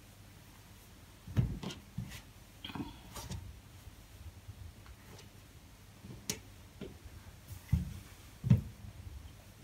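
A long stuffed fabric braid tube being handled, looped and set down on a cutting mat: a few soft thumps, one about a second and a half in and two close together near the end, with light rustling and small clicks between.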